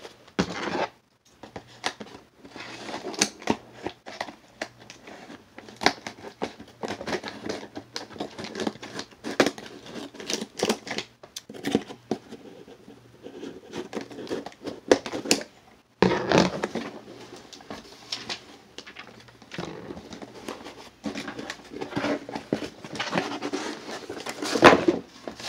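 A cardboard shipping box being opened by hand: a long run of rustling and scraping of cardboard and packing material, broken by many short sharp clicks.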